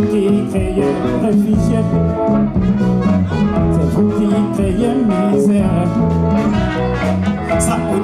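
Live band playing an upbeat number: electric guitar, conga drums and trumpet over a steady beat, with some singing.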